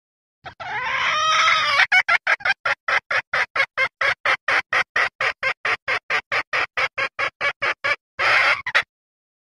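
Junglefowl hen calling: a drawn-out, wavering call, then a quick run of short clucks at about four a second, and a brief call near the end. This is a hen's mating-solicitation call, used as a lure to draw in males.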